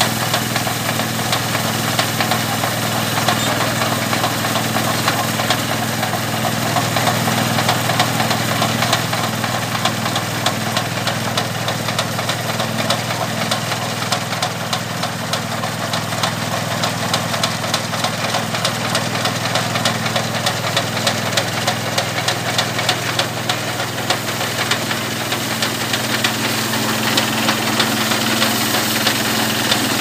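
Kubota 11.5 hp diesel engine of a mini rice combine harvester running steadily under load while the machine cuts and threshes rice, with a fast, fine ticking from the machinery over the engine's hum.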